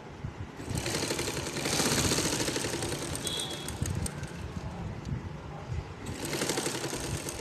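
Domestic straight-stitch sewing machine running and stitching in two runs: a fast, even clatter of the needle that starts about a second in, eases off around the middle, and starts again near the end.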